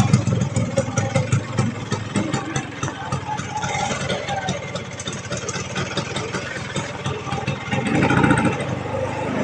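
Vespa PX scooter's two-stroke single-cylinder engine running with an odd, uneven sound. Its owner says it suddenly began sounding strange. It gets louder briefly about eight seconds in.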